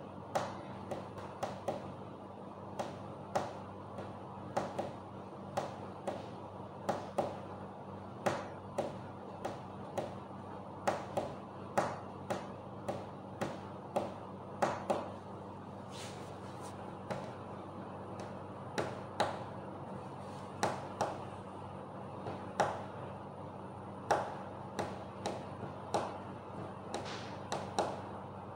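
Irregular sharp taps or clicks, about one or two a second, over a steady low hum.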